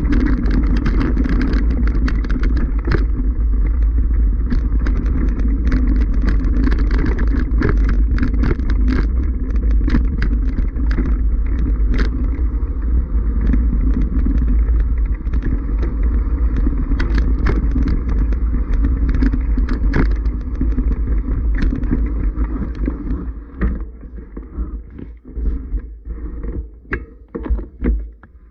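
Mountain bike rolling fast downhill over loose rocky scree: wind rumbles on the action-camera microphone while the tyres crunch over stones and the bike rattles with many sharp clicks. About 23 seconds in it gets quieter and uneven as the bike slows toward snow.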